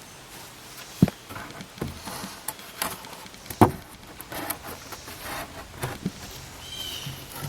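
A handful of irregular knocks and clatters, with two louder strikes about a second in and about three and a half seconds in. A bird chirps briefly near the end.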